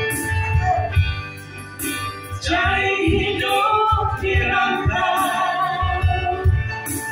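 A woman singing an Ambonese song into a microphone, holding long notes; her voice drops away briefly about two seconds in, then she picks the line up again.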